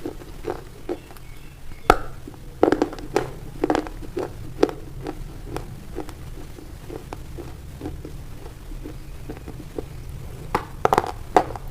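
A knife cutting into a bar of white soap: a series of short, sharp cuts, about one or two a second. The cuts thin out in the middle and come in a quick cluster near the end.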